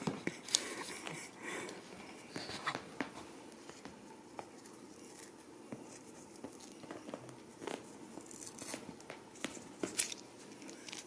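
Faint rustling and scattered small clicks of fingers and a small tool working through a Ragdoll kitten's fur to free something stuck in it. A couple of sharper ticks come shortly after the start and near the end.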